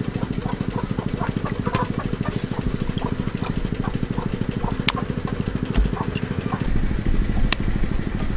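A small engine running steadily with a rapid, even chugging, a little louder near the end, with scattered light clicks and taps over it.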